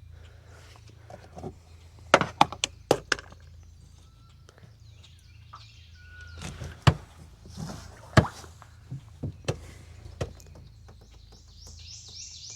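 Scattered sharp knocks and clicks of fishing gear being handled in a boat, over a steady low hum, with a few bird chirps near the end.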